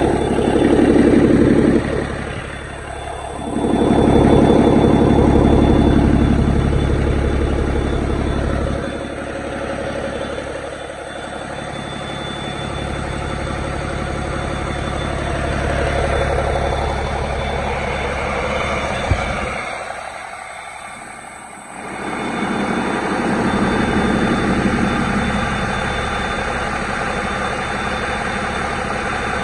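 Cummins ISX15 15-litre inline-six diesel engine running at idle, a steady diesel rumble that swells louder and fades several times. One sharp click partway through.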